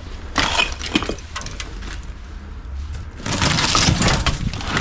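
Footsteps crunching and cracking through debris. There is a short burst just after the start and a longer, denser one in the last second and a half.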